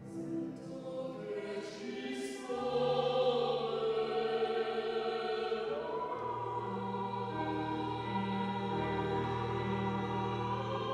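A small vocal ensemble, women's voices with a bass-baritone, singing a sacred song in harmony on long held notes. The voices come in right at the start after a brief pause and swell about two and a half seconds in.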